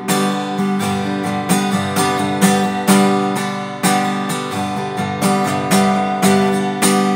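Acoustic guitar playing the song's closing chords in an even run of strikes, the last chord near the end left to ring out.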